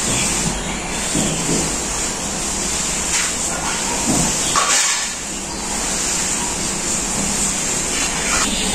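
A wet cloth wiped across a concrete floor, with a few soft swishes over a steady hiss.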